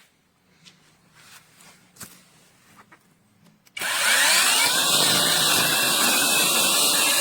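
Battery-powered mini chainsaw with a brushless electric motor: it stops, leaving a few seconds of near quiet with faint clicks. Then, almost four seconds in, the motor starts again, its whine rising quickly in pitch before it runs steadily at full speed.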